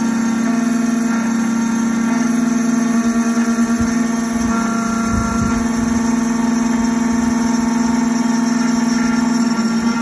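Triton Plus key cutting machine's spindle motor running as its small end-mill cutter mills a hard genuine Hyundai factory key blade at slowed cutting speed. A steady whine that wavers about three to five seconds in.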